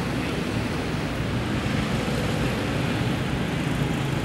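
Steady outdoor background noise: a low rumble with an even hiss over it, with no distinct events.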